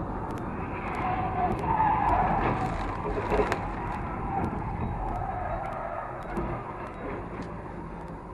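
Car tyres squealing in a skid on a highway, starting about a second in and loudest around two to three seconds in, with a sharp knock near the peak. Steady road and engine rumble from the recording car lies underneath.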